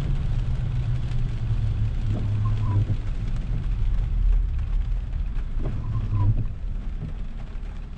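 Inside a car on a wet road: a steady low tyre-and-road rumble, with the windshield wipers sweeping on an intermittent setting about every three and a half seconds. Each pass brings a brief motor hum and a short chirp from the blade, twice in this stretch.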